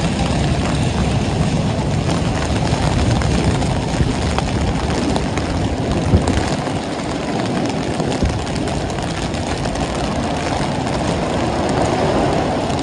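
Heavy rain falling on a city street, mixed with a steady low rumble of traffic. A couple of brief clicks stand out about a third and halfway through.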